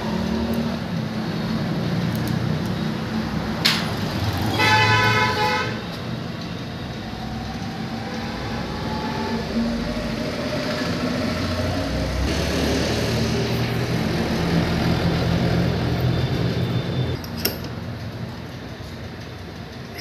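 Motor vehicle engines running steadily, with a vehicle horn honking for about a second around five seconds in.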